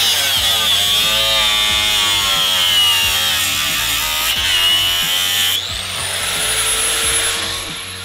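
Angle grinder working metal, its motor whine sagging in pitch as it bears into the work, then climbing back to a steady high free-running whine about five and a half seconds in as it comes off the metal.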